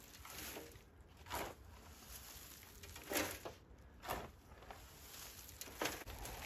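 Wood chips being shovelled into a metal wheelbarrow: a spade scraping into the chip pile and the chips landing, in five or six separate strokes about a second apart.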